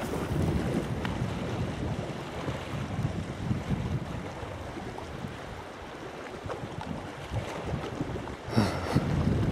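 Wind buffeting the camera microphone: a low, gusting rumble that eases off midway and picks up again, with one short, sharper sound near the end.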